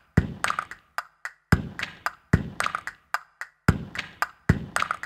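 A sparse hip-hop beat: deep thumps alternating with sharper, higher hits in a repeating pattern, with short silences between the hits.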